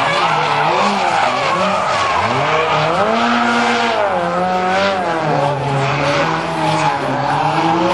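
Nissan S13 drift car with an SR20DET turbocharged four-cylinder, sliding through corners: the engine revs climb about two seconds in, hold, then drop back and run lower, over continuous tyre squeal and skidding.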